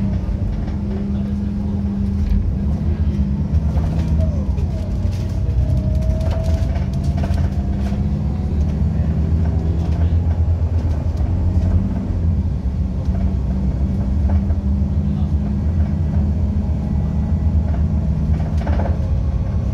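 Interior sound of a Mercedes-Benz OC500LE bus under way, from inside the passenger cabin: its compressed-natural-gas engine and ZF six-speed automatic drivetrain give a steady low drone whose note changes a few times, with a faint rising whine about five seconds in. Light clicks and rattles from the cabin fittings run over it.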